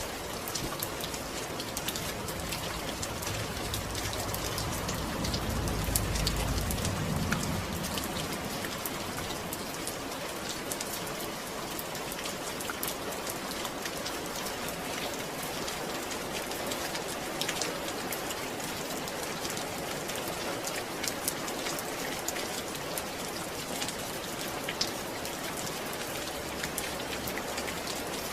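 Steady rain falling: an even hiss with scattered sharp drop ticks. A low rumble swells and fades about four to seven seconds in.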